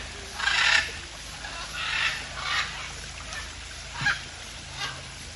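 Parrots squawking: a series of harsh, raspy calls, each about half a second long or shorter, coming every second or so, over a steady low hum.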